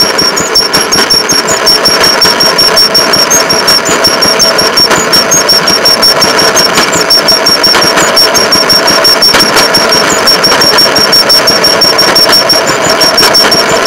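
Rail motorcar (speeder) engine running steadily as the car rolls along the track, with a fast, even beat of engine pulses.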